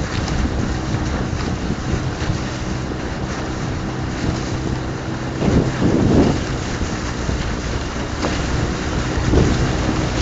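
Outboard motor of a coaching launch running steadily, with wind buffeting the microphone and water rushing past the hull. The noise swells briefly about six seconds in.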